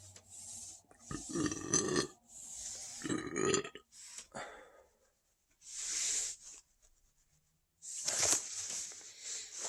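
A person burping twice, long and deep, about a second in and again about three seconds in, on an overfull stomach. Softer breathy sounds follow.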